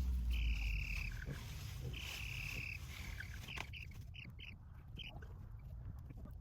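A long, steady high tone sounds twice, about a second and a half apart, over a deep hum that fades within the first second. From about three and a half seconds in, baby chicks peep in short, quick chirps.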